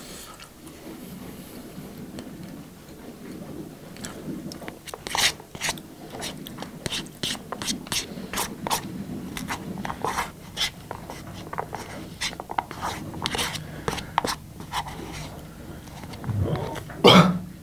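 A spoon scraping and clicking against a bowl again and again as rice is scooped up and eaten, with chewing. A short, loud sound from the eater's throat near the end.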